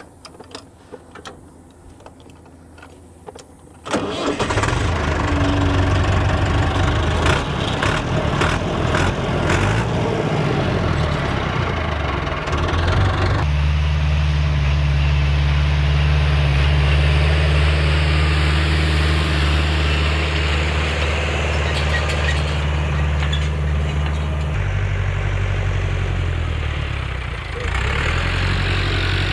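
Massey Ferguson 283 diesel tractor engine starting about four seconds in. It runs unevenly for several seconds, then settles into a steady idle with a deep, even note. The note shifts once, and near the end it dips briefly.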